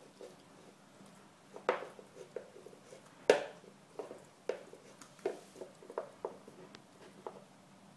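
A Pembroke Welsh Corgi puppy gnawing on a hard hoof chew lying on a wooden floor: irregular sharp knocks and clicks of teeth and hoof, the loudest about three seconds in.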